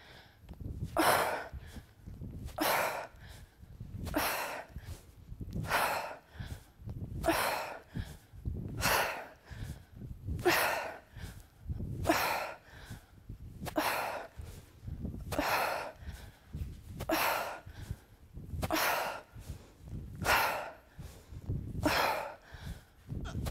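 A woman's forceful breaths, one hard exhale with each kettlebell swing, about fifteen in a steady rhythm roughly every second and a half.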